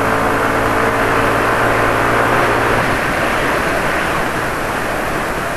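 Scooter engine running at a steady cruising speed under the rush of wind and road noise while riding. About three seconds in, the engine's tone fades as the throttle eases off, leaving mostly wind and tyre noise.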